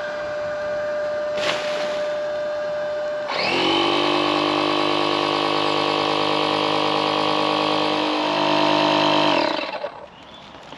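Oak & Iron Wave Pro two-stage portable electric inflator pumping up an inflatable wing. It starts as a steady hum, then about three seconds in turns into a louder whine with several tones as it moves to its slower high-pressure stage. It cuts off about a second before the end, once the set pressure is reached.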